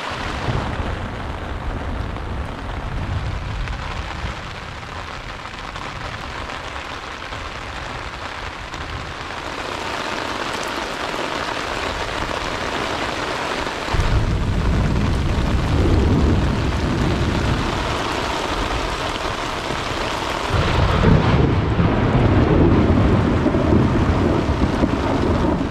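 Steady rain with thunder. A long low rumble of thunder starts suddenly about halfway through, and a second, louder rumble rolls in near the end.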